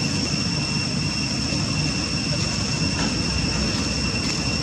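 Steady low rumble with a constant high-pitched whine over it, unbroken throughout.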